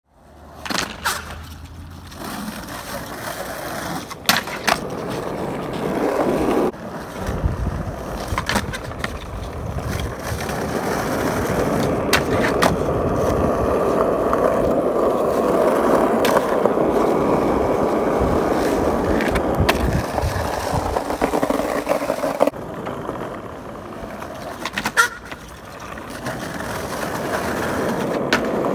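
Skateboard wheels rolling over rough asphalt, the rolling noise building and holding steady through the middle, with a number of sharp clacks from the board against the ground.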